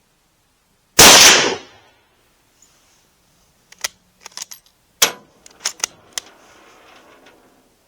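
A single shot from a Mauser K98 bolt-action rifle in 7.92×57 mm, one loud crack about a second in with a short echoing tail. A few seconds later comes a run of sharp metallic clicks, the bolt being worked to eject the spent case and chamber the next round.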